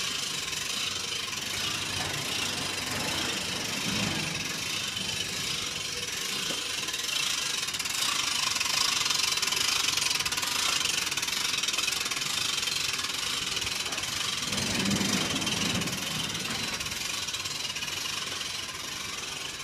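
Hand-cranked winch on a telescopic camera mast being wound, its ratchet and gears clicking steadily as the mast is raised.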